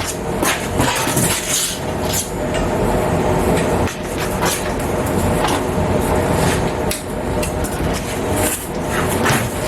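Flux-core MIG welder laying a weld on steel, a continuous harsh crackling with a few brief breaks in the arc.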